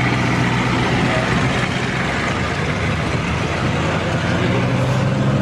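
Ford F-250 diesel engine running as the pickup pulls away on a dirt track. The engine note drops back about two seconds in and picks up again near the end.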